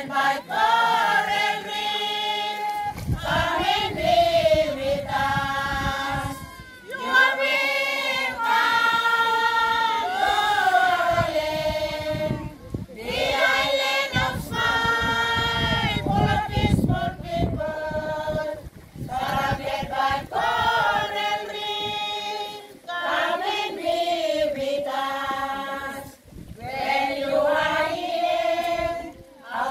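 A large group of women and children singing together unaccompanied, in sung phrases separated by short breaks for breath.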